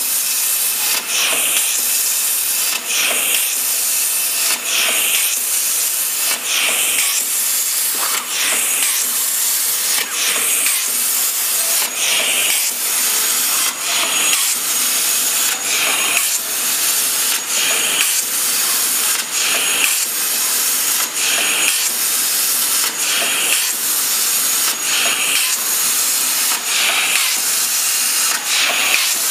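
Plasma cutter arc hissing as the torch cuts rows of small holes in stainless steel sheet. The hiss breaks off briefly about once a second as the torch moves from hole to hole.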